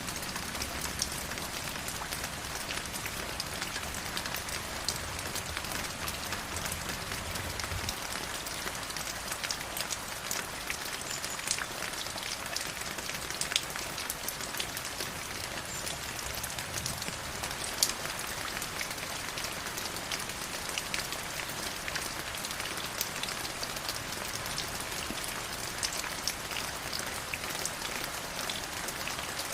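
Flowing river water: a steady rushing hiss scattered with many small splashes.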